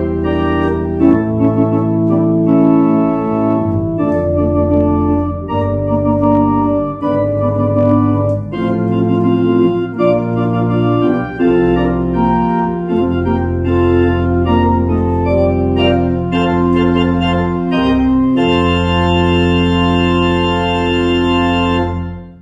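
Organ playing slow, sustained chords over a steady bass. Near the end it holds one chord for about four seconds, then stops.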